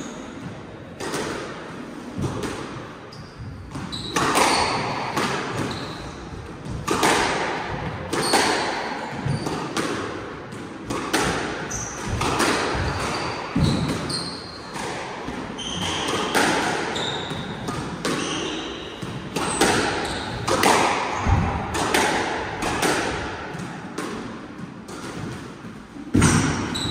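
A squash rally: the ball cracks off rackets and the court walls about once a second, each hit echoing in the enclosed court, with short squeaks of court shoes on the wooden floor between shots.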